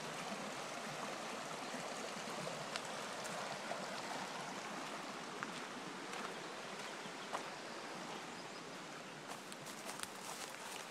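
Small mountain stream flowing steadily, a continuous rush of running water. A few light clicks come in near the end.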